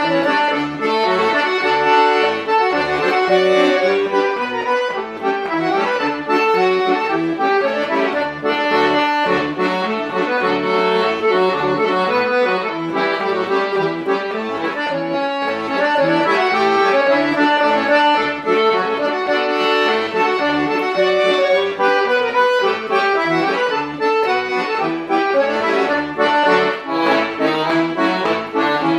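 Zero Sette chromatic button accordion played solo: a polka tune, with a sustained melody over a regular pulsing bass.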